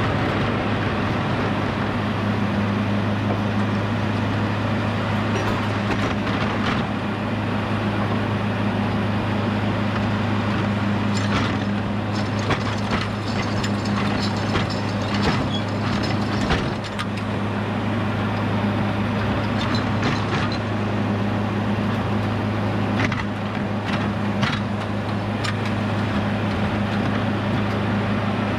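Edmiston hydraulic sawmill running steadily with a constant low engine hum, with two stretches of crackling and knocking from the wood, about a third of the way in and again past the middle.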